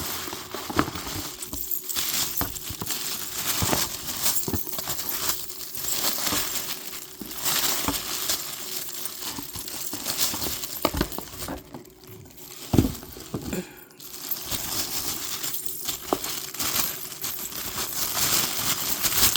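Handling of a sneaker box and its packaging: continuous rustling with scattered clicks and knocks, the sharpest knock about thirteen seconds in.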